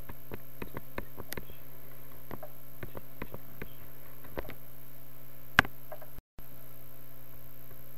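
Irregular computer mouse clicks, about one or two a second, with one louder click about five and a half seconds in, over a steady low electrical hum and hiss.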